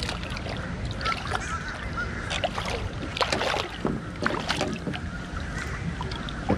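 Hooked redfish splashing and thrashing at the water's surface beside a boat as it is led in on the line: a run of irregular splashes over a steady low rumble.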